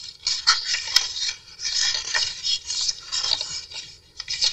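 Paper rustling and scraping as the pages, tucks and inserts of a handmade junk journal are handled and turned, with a sharp click about a second in.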